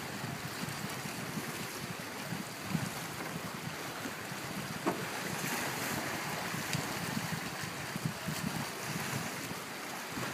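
Small sea waves washing against a rocky shore, with wind buffeting the microphone in uneven low rumbles throughout.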